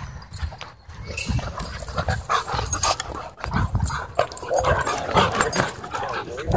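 Several dogs wrestling in rough play: scuffling on dirt mixed with short dog vocal sounds, busier in the second half.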